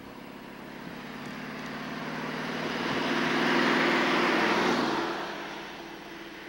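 Vintage car driving past: its engine and tyre noise swell as it approaches, are loudest about four seconds in, then fade as it moves away.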